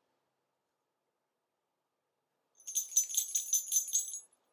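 Sleigh bells shaken in a quick, even jingle, about five shakes a second, starting about two and a half seconds in and lasting about a second and a half.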